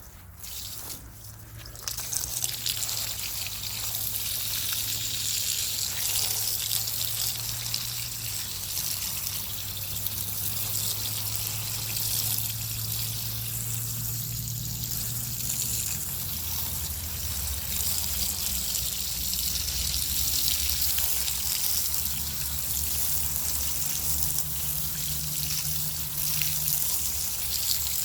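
Water running and trickling, beginning about two seconds in, over low steady tones that shift in pitch a few times.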